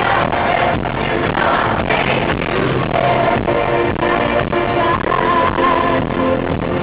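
Loud music with singing, continuous throughout.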